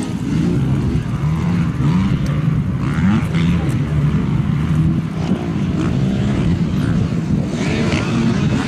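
Motocross bike engines revving up and falling back over and over as the bikes ride and jump the track, mixed with the voices of people talking.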